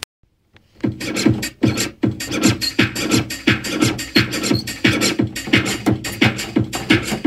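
Music with a fast, steady beat, starting about a second in after a brief silence.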